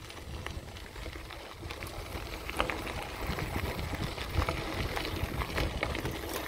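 Bicycle riding over a gravel trail: tyres crunching on loose stones with scattered small clicks and rattles from the bike over bumps, over a low rumble of motion.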